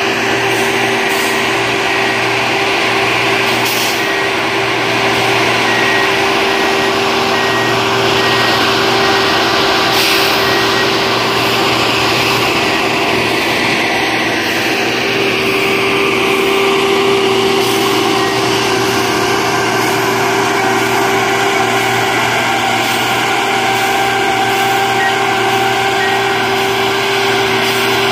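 Diesel engines of rail maintenance-of-way track machines running steadily, loud and unchanging, with an electronic travel alarm beeping in repeated short tones through the first half and again near the end.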